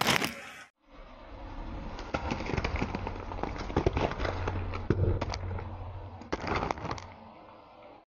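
Car tyre rolling over and crushing beetroots: a run of sharp crunching cracks and snaps over a low engine hum, cutting off suddenly near the end.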